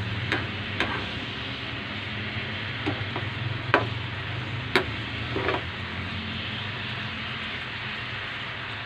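Beefsteak sauce with onions bubbling and sizzling steadily in a frying pan as it reduces, with a steady low hum underneath. A metal spoon stirs, scraping and tapping against the pan several times in the first half.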